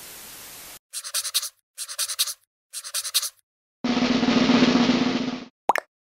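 Video-editing sound effects: a brief hiss of TV static, then three short rattling bursts of quick hits about a second apart, then a longer, louder burst of noise with a low hum that stops suddenly, followed by a short blip near the end.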